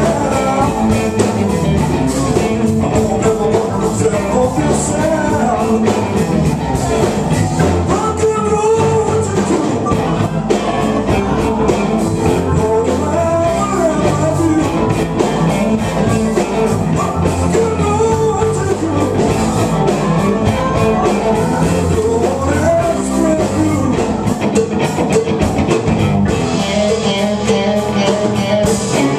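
Live blues-rock band playing electric guitar and keyboard, with singing over it.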